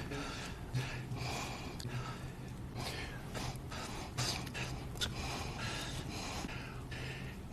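A man's close-miked breathing into a microphone: quick sharp inhalations, sniffs and slurping mouth noises, about two a second, over a low steady hum.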